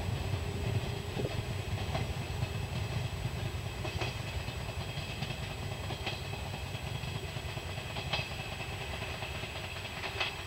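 JR East 719 series electric train pulling away along the track, its low rumble slowly fading as it recedes. A sharp click comes about every two seconds in the second half.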